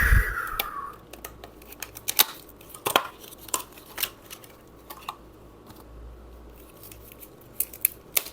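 Small plastic parts and a phone-speaker battery being handled on a workbench: irregular sharp clicks and taps, a dozen or so spread out, with a few louder knocks.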